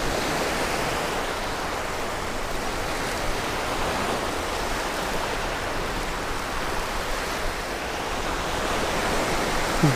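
Small surf waves breaking and washing up the sand at the water's edge, a steady wash of noise.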